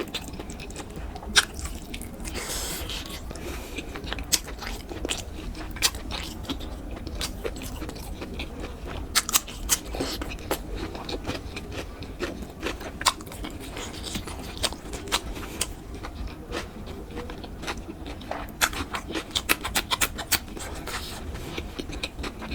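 Close-miked eating sounds: chewing and biting with many irregular wet mouth clicks and occasional scrapes, a sharper click about a second and a half in.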